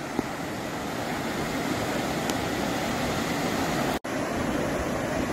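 Ocean surf breaking and washing up a sandy beach, a steady rushing wash of waves, broken by a brief dropout about four seconds in.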